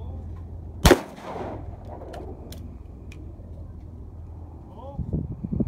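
A single shotgun shot at a clay target about a second in, with a long echo trailing off after it. A few softer knocks follow near the end, and a second shot goes off right at the end.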